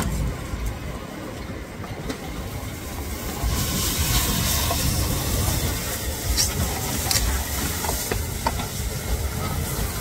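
Steady low rumble with a few sharp clicks of a knife and tongs on a cutting board; about three and a half seconds in, a loud hiss from the flame-grilling steak sets in and holds.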